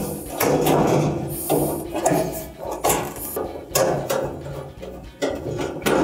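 Sheet-metal dryer cabinet and panels knocking and clattering as they are handled and fitted back together, with several sharp, irregular knocks.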